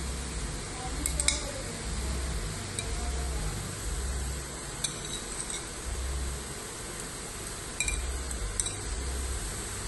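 Beef steaks sizzling steadily in a hot frying pan, with a few light clinks of dishware against the pan as sliced onion and peppers are added.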